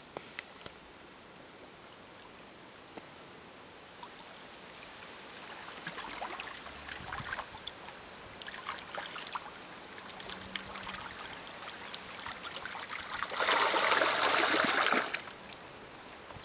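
Water splashing and trickling in rocky lake shallows, with scattered small splashes. About 13 seconds in comes a loud burst of splashing that lasts about a second and a half.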